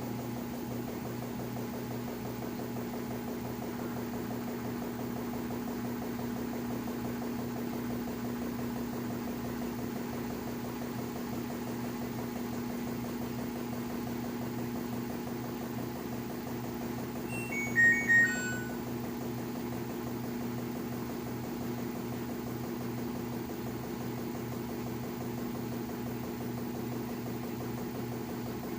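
LG washing machine running with a steady low hum, a noise that the owner finds abnormal but that has been judged normal. About 18 seconds in, a brief run of high electronic beeps sounds over it.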